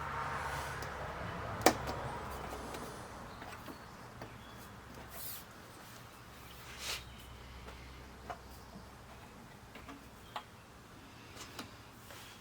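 Scattered sharp clicks and light taps of LCD TV parts being handled, the loudest about a second and a half in, over a faint steady low hum.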